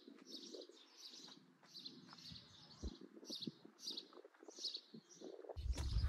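A small bird chirping over and over, about two short high chirps a second. A low rumble on the microphone comes in near the end.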